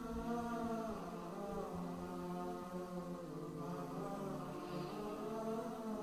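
Background music of slow, chant-like held notes whose pitch shifts gently every second or two.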